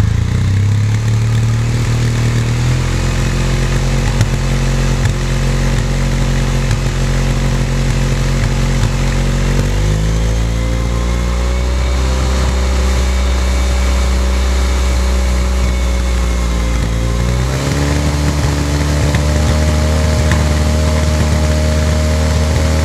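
Suzuki Burgman 650 scooter's parallel-twin engine running on its stand, held steady at each speed and stepped up in engine speed three times, at about 3, 10 and 17 seconds in, as it is taken from idle through higher fixed rpm to compare the exhaust note.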